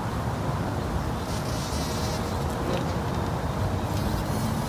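Bumblebee buzzing as it vibrates tomato flowers to shake loose their pollen (buzz pollination), over a steady low rumble.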